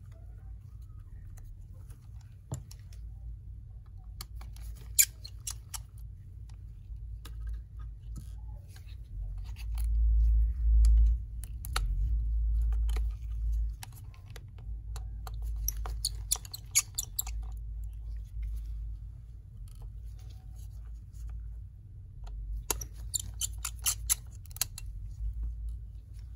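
Small clicks, taps and scrapes of gloved hands working on the exposed internals of a MacBook Air laptop as the logic board is loosened to free a cable. Two short clusters of rapid clicking come about two-thirds of the way through and near the end, with a low bumping rumble around the middle.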